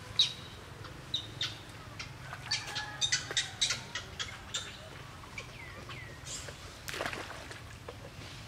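A series of short, high-pitched animal calls: about a dozen sharp chirps and squeaks, the loudest at the very start. A couple of them fall in pitch about six seconds in, and a harsher, noisier call comes about seven seconds in.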